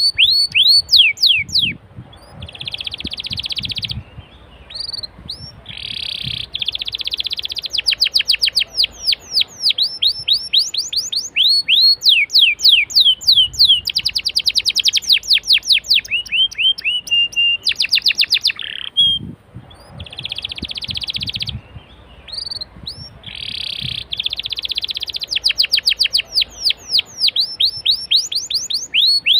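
Domestic canary singing: rapid runs of falling notes alternating with buzzy rolled trills, with a short steady whistle just before a brief break about 19 seconds in, after which the song starts again in the same order.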